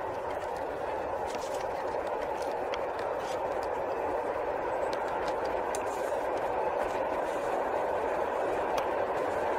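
Freight train hauled by an ET22 electric locomotive approaching: a steady running noise of wheels and motors that slowly grows louder.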